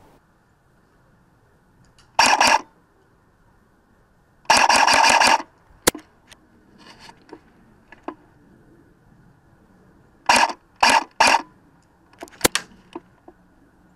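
Airsoft guns firing in bursts: a short burst, then a longer one of about a second, then three short bursts in quick succession, with a few sharp single clicks between.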